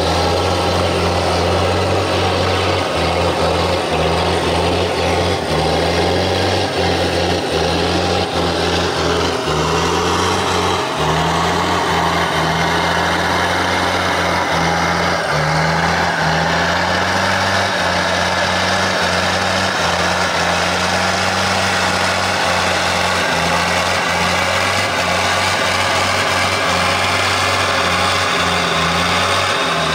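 Off-road 4x4 vehicle engine running continuously, its revs slowly rising and falling as it works along.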